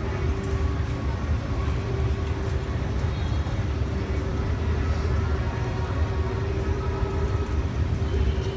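Steady low rumble of street traffic with a constant hum over it and a few faint clicks.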